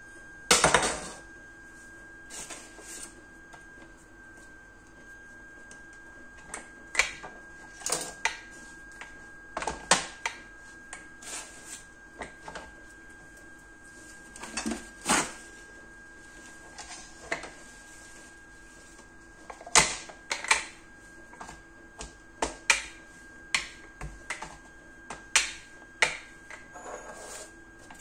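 Irregular clicks and knocks of a plastic rolling pin and a knife handled on a plastic cutting board as a ball of dough is flattened and rolled out thin, over a faint steady high tone.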